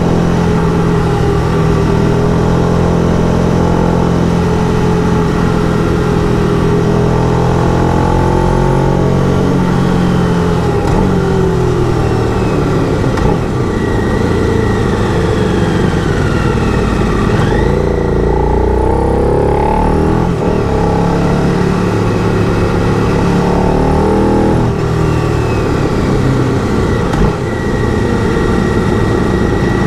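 Motorcycle engine running while riding, its revs rising and falling with throttle and gear changes, over a steady rush of wind noise.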